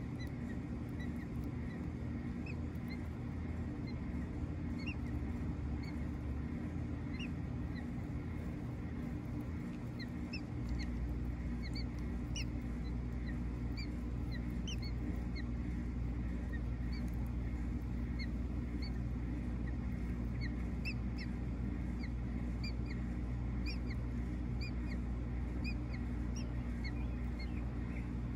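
A steady low hum, which gets a step louder and deeper about ten seconds in, under many faint, short, high bird chirps scattered throughout.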